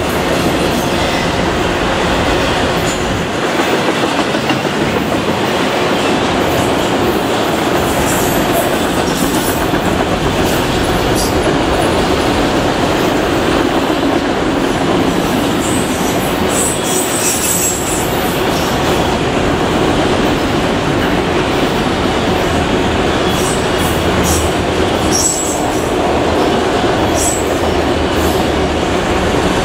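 Freight train of enclosed autorack cars rolling past close by: a loud, steady rumble and clatter of steel wheels on rail, with a few brief high-pitched squeaks from the wheels about halfway through and again near the end.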